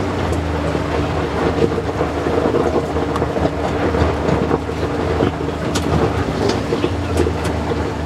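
Kawasaki Mule Pro-FXT side-by-side driving over a gravel trail: its three-cylinder engine running steadily under a hiss of tyres on gravel, with scattered clicks of stones.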